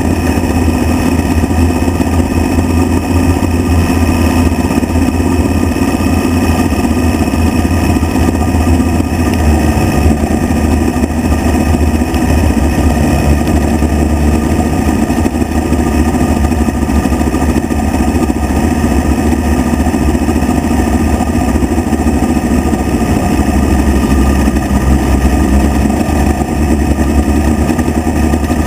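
Midget race car engine heard on board, running hard at racing speed, loud and steady with no break.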